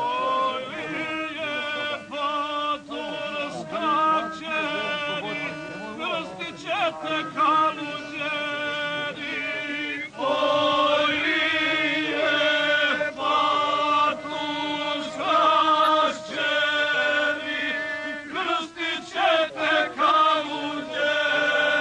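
Male voices singing in a chant-like style, with musical accompaniment and a steady held tone beneath the melody.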